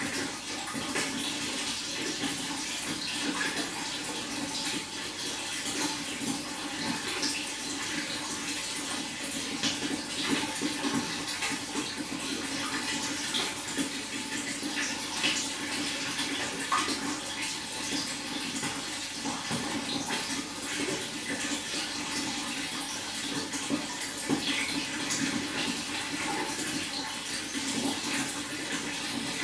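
Running water, a steady splashing rush with many small splashes and drips scattered through it.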